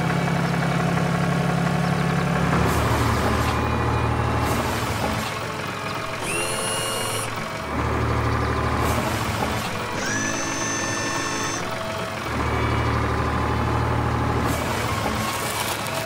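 Cartoon tractor engine sound effect: a steady low drone in stretches of one to two seconds, with two short high whistling tones as the loader arm works, over background music.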